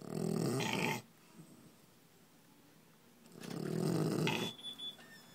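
A sleeping pet snoring: two loud snores about three seconds apart, each lasting about a second.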